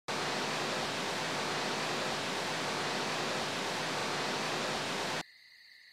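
Video-feed static: a steady hiss of signal noise while the link is being established, cutting off suddenly about five seconds in as the picture comes through.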